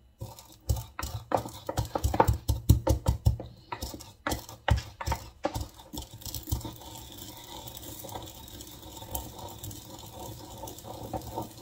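Wooden pestle pounding sesame seeds in a bamboo mortar: quick, irregular knocks, several a second, for about the first five seconds, then softer grinding.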